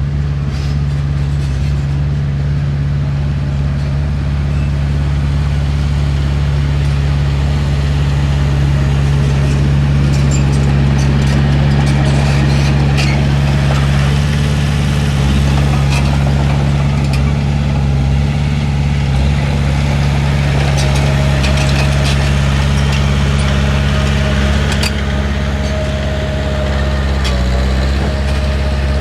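Heavy diesel engine of earthmoving machinery running at a steady pitch, with light clicks and rattles now and then.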